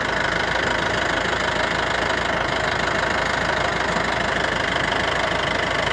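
Safari jeep's engine idling steadily with a continuous knocking clatter.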